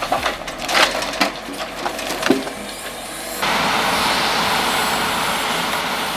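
Wood knocking and splintering with a run of sharp cracks, then, a little past halfway, a steady, louder, even rushing noise sets in.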